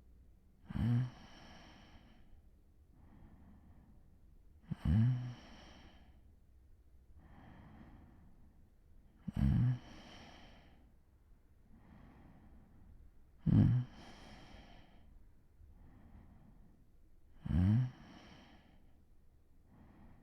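A person asleep, snoring lightly: five short, low snoring breaths about four seconds apart, with softer breaths between them.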